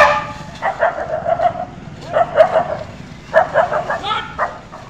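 Puppies barking at a baby elephant, high yapping barks in three quick runs of several barks each.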